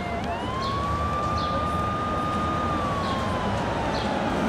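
Siren of an approaching vehicle column, wailing slowly: the pitch rises just after the start, holds, falls gradually and begins to rise again at the end, over the steady hum of street traffic.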